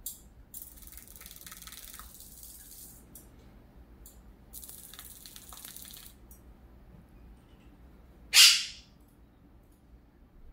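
Guianan toucanet bathing in a small steel water bowl: two bouts of splashing of about two seconds each, then one short, loud burst about eight seconds in.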